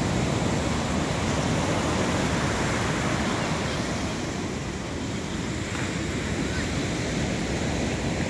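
Ocean surf breaking and washing up the shore: a steady rushing roar of waves that keeps on without a break.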